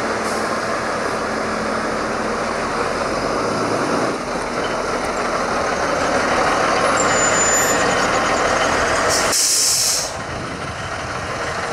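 Fire engine's diesel engine running as the truck pulls out and rolls forward, growing louder, then a sharp hiss of the air brakes lasting under a second near the end as it stops.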